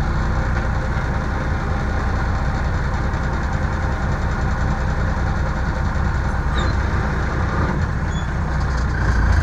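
Single-axle dump truck's engine running steadily at low speed, heard from inside the cab as the truck rolls slowly forward.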